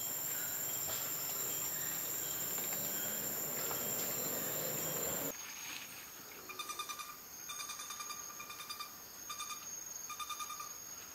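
Steady drone of rainforest insects with a high, even whine. About halfway through it cuts off, and rapid electronic beeping comes in, in several short runs: an avalanche-rescue receiver picking up the signal of a frog's radio tag.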